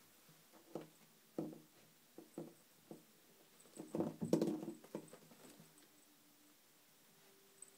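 A kitten pouncing and scrabbling on a doormat under a curtain: a few separate soft thumps, then a busier flurry of scuffles about four seconds in.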